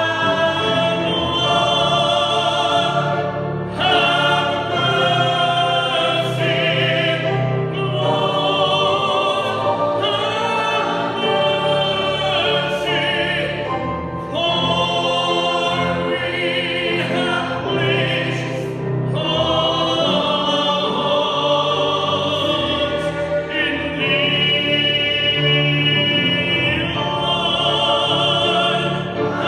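Honors chorus singing, with long held notes and a wavering vibrato in the top voices, and short breaths between phrases.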